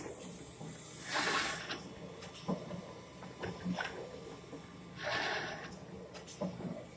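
Automatic welding-head wire hanger making machine running: a steady low hum with light clicks and knocks, and two short hissing bursts about four seconds apart.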